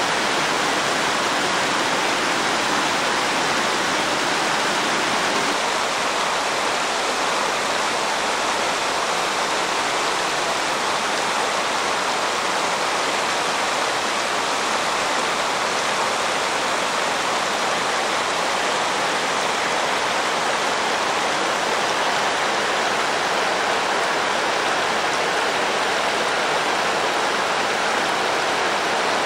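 Shallow river water rushing over a low weir and rocks: a steady, unbroken rush.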